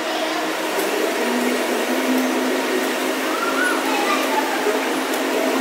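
Electric indoor go-karts whirring steadily as they move through the pit lane past the microphone, in a dense hall din with voices mixed in.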